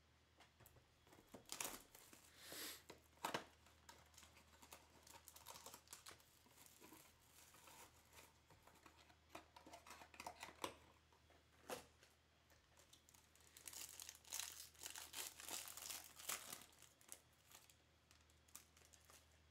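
Cardboard trading card box being opened and a foil card pack torn open and its wrapper crinkled, with scattered clicks and rustles in irregular clusters, a longer run of crinkling near the end.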